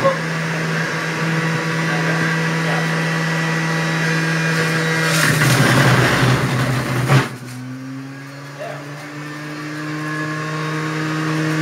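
Juiceman electric juicer's motor running with a steady hum. About five seconds in, a loud grinding noise lasts about two seconds as a carrot is pressed down the feed chute onto the spinning cutter. The motor then runs on more quietly, its pitch slowly rising.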